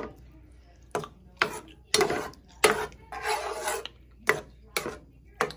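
Spoon stirring thick ground-beef tomato sauce in a coated skillet, scraping and knocking against the pan in a string of short strokes, with one longer scrape about three seconds in.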